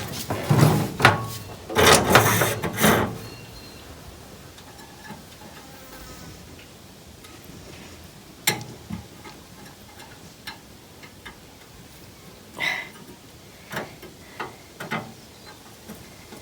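Handling noises: rubbing and clattering for about three seconds, then a few scattered light knocks and clicks.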